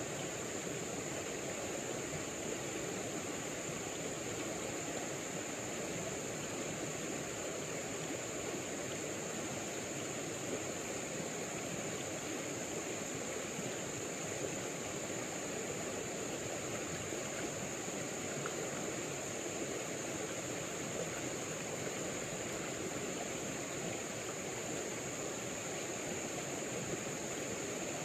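Steady rush of a shallow river flowing over its bed, with a thin steady high-pitched hum above it.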